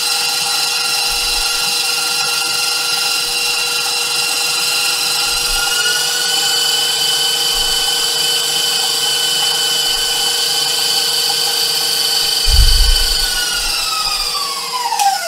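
Stand mixer motor running steadily with a whine as it beats a cream cheese, sugar and vanilla filling until smooth. The pitch rises slightly about five seconds in, there is a dull low thump near the end, and then the whine slides down as the mixer is switched off and winds down.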